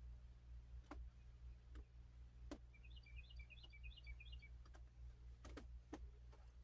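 Near silence: a steady low hum with a few faint clicks scattered through, and a short run of faint high chirps about three seconds in.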